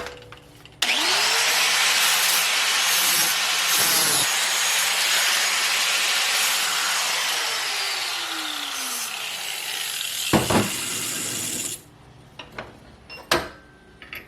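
Hand-held grinder with a flap wheel spinning up with a quick rising whine and grinding the steel of a lawn mower blade, a loud harsh rush for about eleven seconds that then stops abruptly; a few sharp knocks follow. The grinding takes metal off the heavier end of the blade to balance it.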